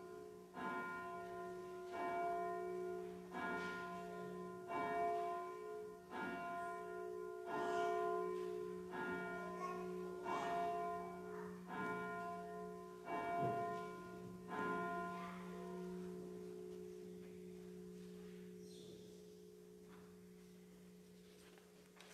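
A single church bell ringing, struck about once every second and a half. The strokes stop about two-thirds of the way through, and its hum dies away slowly after the last one.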